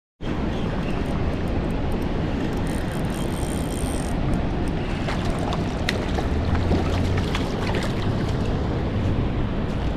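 Steady wind buffeting the microphone over lapping water, with a few faint clicks.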